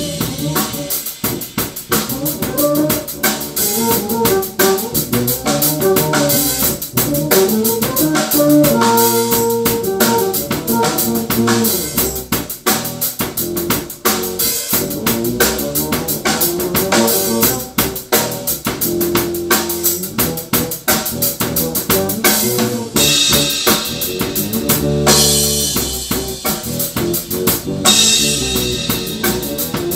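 Drum kit and electric bass guitar playing a groove together: a busy, steady beat of drum hits under a moving bass line. Cymbals ring out loudly twice near the end.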